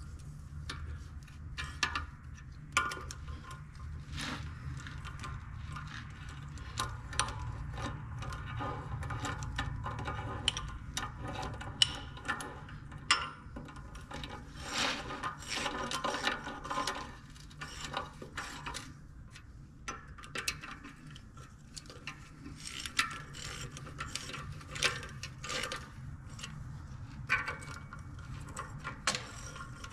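Hand socket ratchet clicking in short irregular runs as the bolts of a new clutch pressure plate are run down and snugged on a tractor flywheel.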